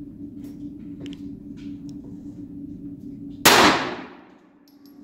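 A single pistol shot about three and a half seconds in, echoing off the walls of an indoor range.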